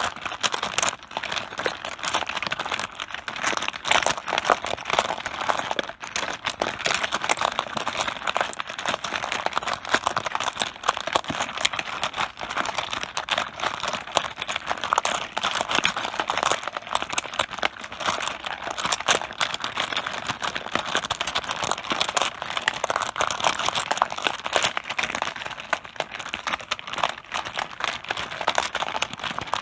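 Mahjong tiles clattering together on a tabletop: a dense, unbroken stream of small clicks and knocks.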